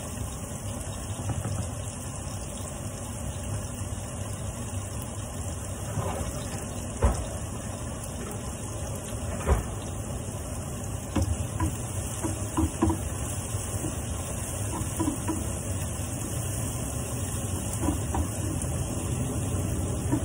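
Cooking at a stovetop: a steady low hum and hiss, with two sharp knocks about seven and nine and a half seconds in and a run of lighter clinks soon after, as pans and wooden spoons are handled.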